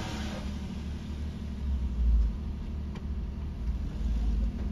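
Car engine and road rumble heard from inside the cabin as the car struggles to pull on a steep climb. The low rumble swells about two seconds in and again near the end.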